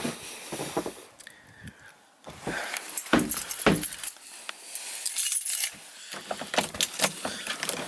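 A run of irregular clinks and knocks, with a brief lull about a second in.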